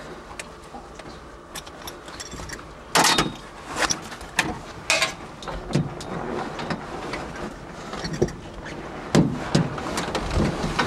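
Irregular knocks, clicks and rustles inside a car, over a low steady hiss, the loudest about three seconds in and again near the end.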